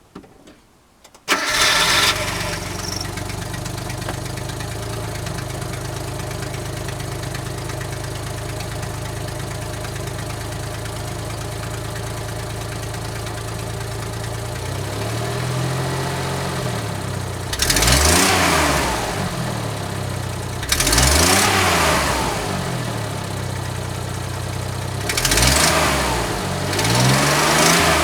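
Suzuki Jimny JA11V's small three-cylinder turbo engine starting about a second in and idling steadily, then revved and let fall back several times in the second half. The engine bay gives off the clattering (katakata) rattle that the owner reports as an abnormal noise.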